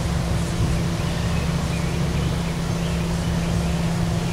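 A steady, unchanging low mechanical rumble with a constant hum.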